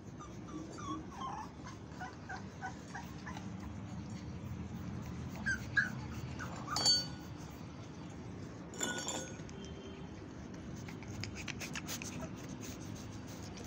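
Boxer puppies whimpering and yipping. A quick run of short, high whines comes in the first few seconds, and a couple of louder, sharper yelps come near the middle.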